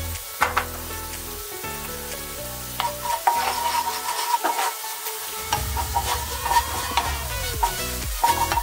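Garlic cloves and turmeric sizzling as they fry in hot oil in a wok, with a wooden spoon stirring and knocking against the pan many times. Background music with held notes plays underneath.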